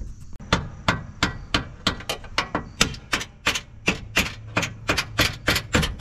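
Rapid, regular hammer blows, about three a second, driving the 2022 Toyota Tacoma's front body mount bolt upward out of the mount once its nut is off.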